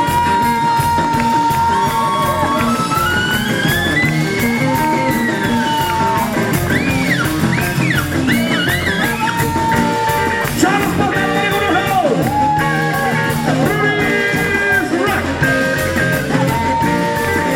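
Live rock and roll band playing an instrumental break: a lead instrument holds long notes, slides up and down and bends notes quickly, over bass and drums keeping a steady beat.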